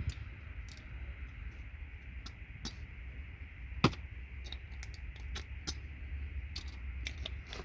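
Scattered small clicks and taps of plastic connector housings and metal pins being handled while RJ45 connectors are stripped for their gold-plated pins, with one sharper click about four seconds in, over a low steady hum.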